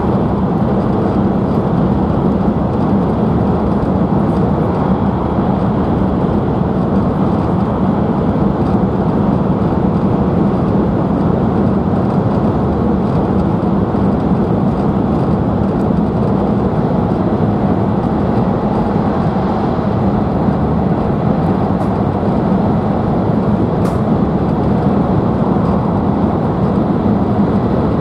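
E5 series Shinkansen running at speed, heard from inside the passenger cabin: a steady, loud running noise with a low drone.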